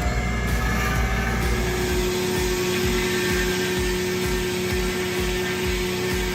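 Sawmill saw running: a steady machine noise with a whining tone that slides in pitch during the first second or so, then holds steady. From about two seconds in there is also a low pulse about twice a second.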